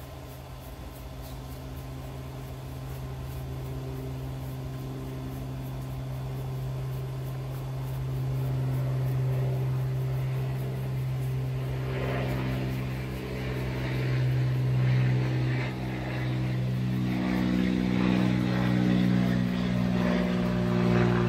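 A motor's steady low drone that grows gradually louder, turning rougher about halfway through.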